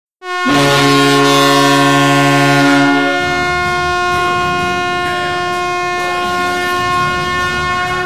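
KM-135 air horn sounding a loud goal-horn blast: a chord of several steady tones that starts suddenly. About three seconds in, the lowest tones drop out while the higher tones keep sounding.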